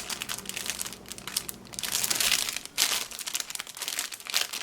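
Plastic packaging crinkling and rustling as it is handled, in irregular clusters of crackles that are densest about two seconds in.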